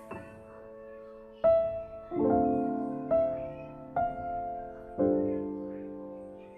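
Background music: a slow, gentle piano tune, with a note or chord struck about once a second and left to ring and fade.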